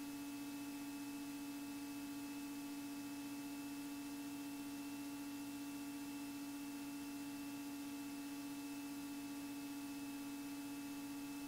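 Steady electrical hum with a light hiss in the aircraft's headset intercom audio, unchanging throughout.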